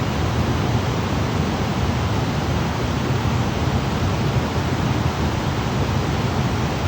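Waterfall: falling water rushing in a steady, unbroken roar of noise, deepest and heaviest in the low range, with no change throughout.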